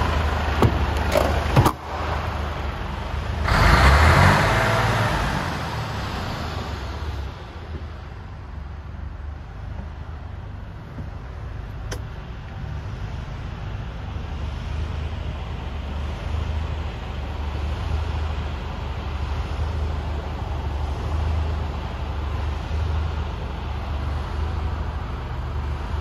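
Mercedes Actros 1845's V6 diesel engine idling with a steady low hum. A few sharp clicks from the cab door latch come near the start, and a louder burst of handling noise about four seconds in as the door is opened and the cab entered.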